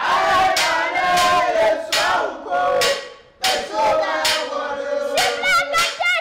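A boy chanting in a loud, strained voice, holding some notes and breaking others into short shouted phrases, with sharp percussive strikes between the phrases.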